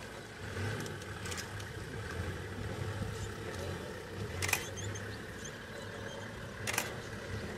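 Safari vehicle engine idling with a steady low rumble, with a few sharp clicks over it.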